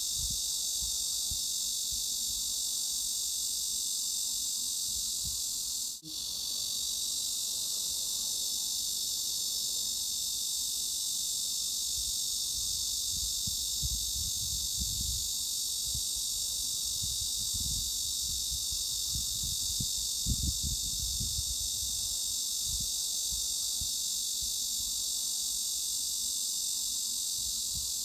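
Cicadas buzzing in a steady, unbroken high-pitched drone. It cuts out for a split second about six seconds in, and a faint low rumble comes and goes underneath.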